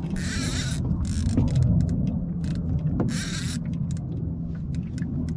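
Fishing reel's drag buzzing out in about three short bursts as a hooked catfish pulls line, over a steady low hum.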